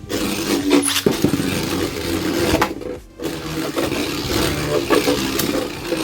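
Beyblade Burst spinning tops whirring and scraping against each other and the plastic stadium floor, with sharp clacking hits about a second in. The sound drops out briefly near the middle, then the grinding goes on.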